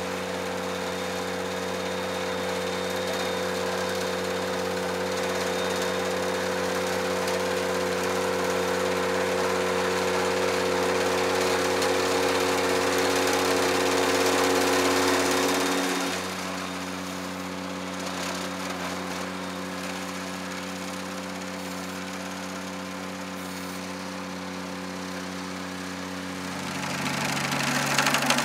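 Ventrac compact tractor's engine running at a steady speed while the boom mower works, with a rushing noise over the engine note. The noise drops back a little past halfway, and near the end the engine note changes and gets louder.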